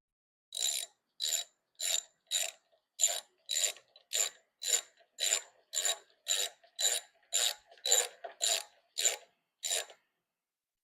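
Ratchet wrench being worked back and forth to drive a bolt, its pawl clicking in a short burst on each back-stroke, about two strokes a second, stopping near the end.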